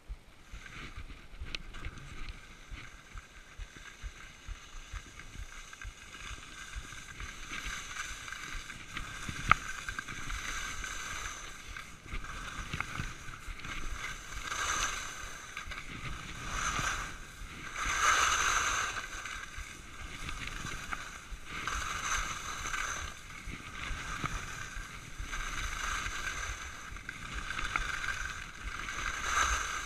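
Skis scraping and hissing over packed snow through a series of turns, the hiss swelling and fading every second or two, with one sharp click about nine seconds in.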